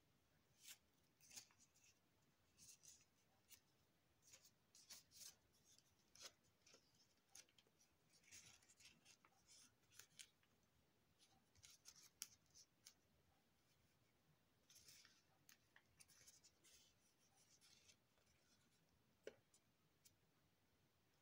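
Faint crackling and rustling of origami paper being folded and creased by hand, in short, irregular bursts.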